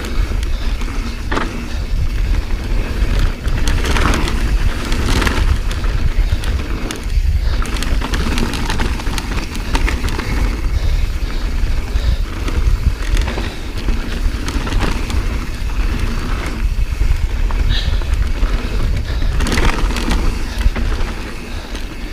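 Transition Patrol carbon mountain bike running fast down a loose, dusty dirt trail: tyres rolling over dry dirt with an ongoing clatter of knocks and rattles from the bike over bumps, under heavy wind rumble on the chest-mounted camera's microphone.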